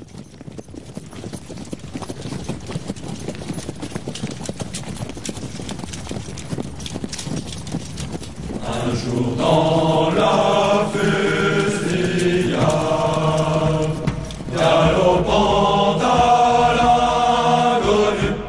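Soundtrack music: a dense patter of clicks and taps, then from about nine seconds in a group of voices chanting in long held chords.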